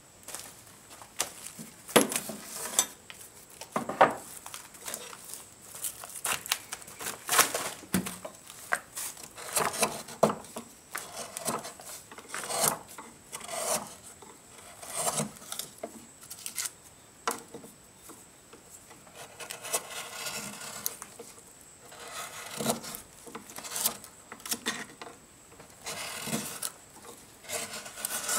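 A hand carving tool cutting and scraping out the inside of a birch kuksa's bowl, in irregular rasping strokes of roughly one or two a second, some sharper than others.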